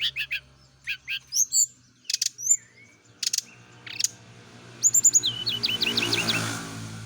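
Brown-chested jungle flycatcher singing: scattered sharp chirps and whistled calls, then a quick run of about eight short notes around five seconds in.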